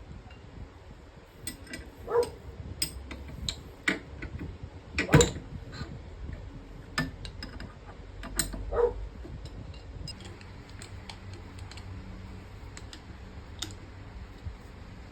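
Irregular clicks and light knocks of small hard objects being handled and set down, the loudest about five seconds in, over a low steady background.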